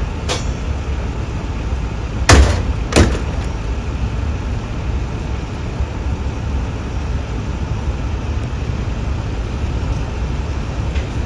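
Steady low rumble of idling vehicle engines, with two loud bangs a little over two seconds in, about half a second apart.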